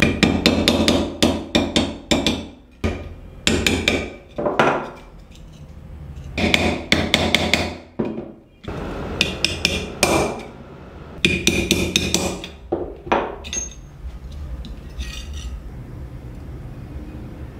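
Hammer striking a rusty sheet-steel lock case on a steel block: quick runs of sharp metallic blows with short pauses between them, stopping near the end.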